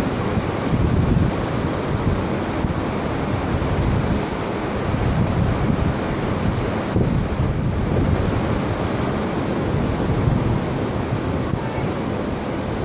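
Wind buffeting the microphone with a low rumble over a steady wash of surf.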